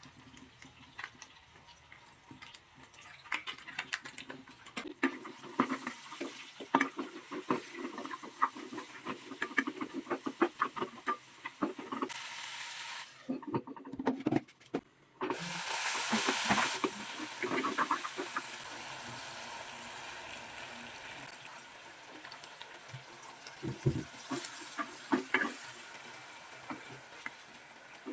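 Pork frying in a pan with onion, tomato and garlic: a utensil clicks and scrapes against the pan as it is stirred, over a sizzle that gets louder about halfway through.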